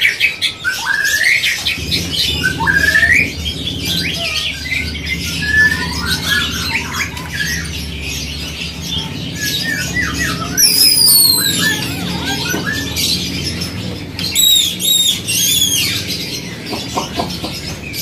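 Several caged songbirds calling and singing at once: short whistled phrases, chirps and rising glides, with a run of rapid high falling whistles about ten seconds in and a set of repeated high notes a few seconds later. A low steady hum underlies much of it.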